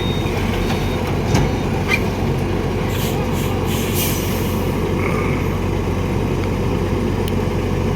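Caterpillar wheeled excavator's diesel engine running steadily, with a few brief knocks over it between one and four seconds in.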